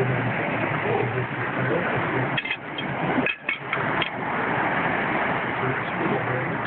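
Outdoor wind blowing across a phone microphone: a loud, steady rushing noise with a low hum underneath. It eases for a moment a little past the middle, where a few clicks sound as the phone is moved.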